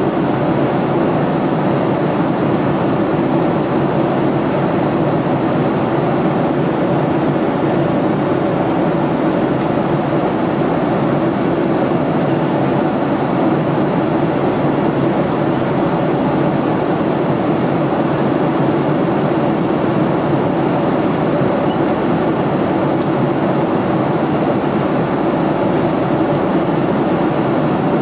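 Cabin noise of a Boeing 767-300 in cruise, heard inside the cabin by the wing: a steady, even rush of airflow and engine noise from its Rolls-Royce RB211 engines, with a steady low hum underneath.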